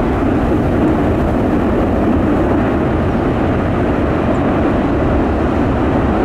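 Steady, loud roar of an EF-4 tornado's winds, with strong wind buffeting the microphone.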